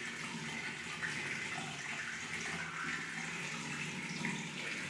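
Water running in a steady stream.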